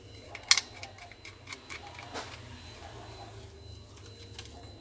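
A sharp click about half a second in, then a few light ticks and taps: small hard parts being handled while the laptop's hard drive is taken out.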